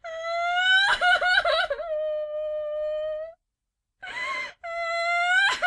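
A woman crying: a high wail rising into shaky, broken sobs, then held as one long steady note. After a short pause comes a sharp breathy intake of breath, and a second rising wail breaks into sobbing near the end.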